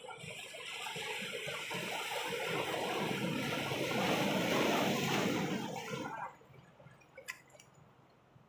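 Sea water surging and washing among shoreline boulders, a rushing noise that builds over about five seconds and then cuts off suddenly. A couple of sharp clicks follow about a second later.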